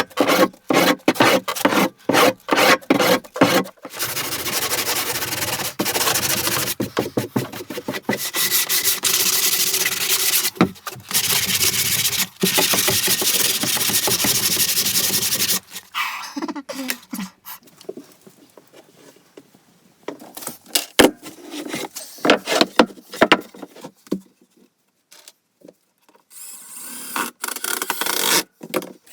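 A hand tool working wood: quick short strokes at first, then a long run of rapid back-and-forth rasping that stops about halfway through, followed by scattered knocks and scrapes.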